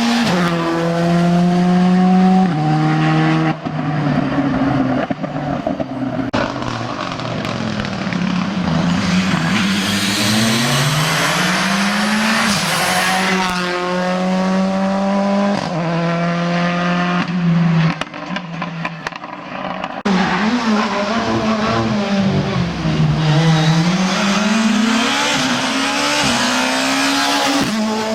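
Rally car engines revving hard and changing gear, the pitch stepping and swooping up and down, with tyre squeal.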